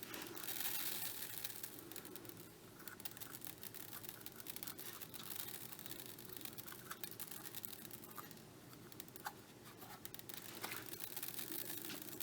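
Faint scratching and irregular light clicking as tiny beads are picked and shaken out of a cut-open rubber squishy toy.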